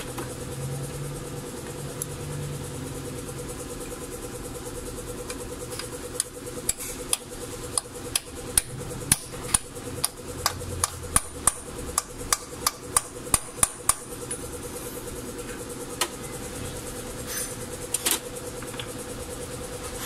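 A run of sharp metallic taps, about two a second for several seconds midway, from work on a diesel injection pump's front cover as it is fitted over the freshly sealed drive shaft, under a steady hum.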